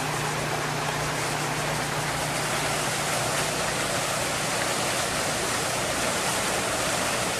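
Steady, even rushing noise with no distinct knocks, splashes or voices.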